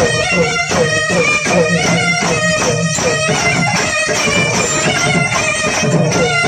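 Karakattam dance music: a loud double-reed pipe in the nadaswaram style plays a wavering, ornamented melody over steady drum beats.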